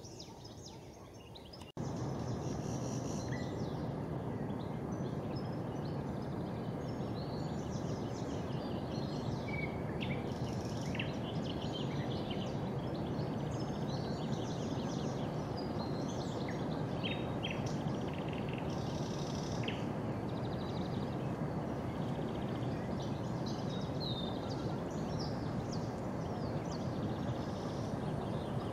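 Songbirds chirping and calling in short scattered notes over a steady background hiss. The hiss starts abruptly about two seconds in.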